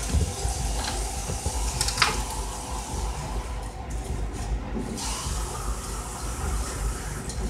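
Water and oil hissing and bubbling in a hot cast-iron skillet as fideo noodles are stirred with a wooden spoon, a steady rushing sizzle with a couple of light knocks about one and two seconds in.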